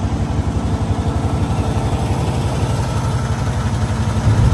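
Heavy diesel engine of a semi tractor idling, heard close to its chrome exhaust stack: a steady, even low pulsing. Shortly before the end a louder, deeper drone takes over.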